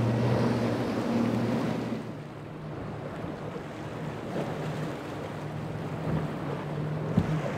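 Powerboat engines running with a steady hum over wind and water noise. It is louder for the first two seconds, then drops to a lower, quieter engine hum, with one sharp click near the end.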